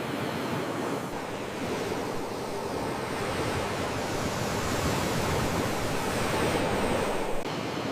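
Sea waves washing onto a shore, a steady rushing noise that swells in the middle and then drops suddenly shortly before the end.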